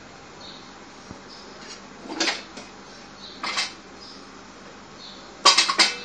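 Kitchen clatter of hard utensils or containers being handled: a single short knock about two seconds in, another about a second later, then a louder quick cluster of clanks near the end, over a faint steady background hiss.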